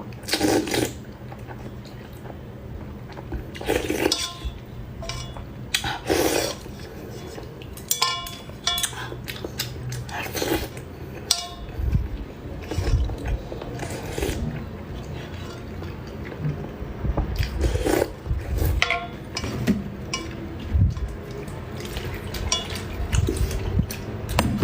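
Close-miked eating of noodle soup and fried eggs: utensils clink and knock against the bowl a dozen or so times, some with a brief ring. Between the clinks come wet eating and liquid sounds, heavier in the second half.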